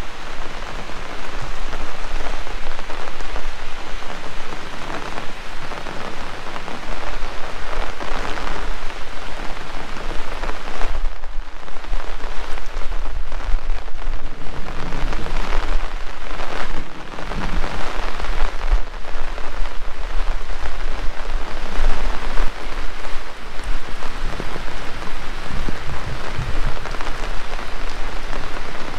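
Heavy tropical rain falling steadily: a dense, loud hiss of rain hitting surfaces, with a low rumble underneath.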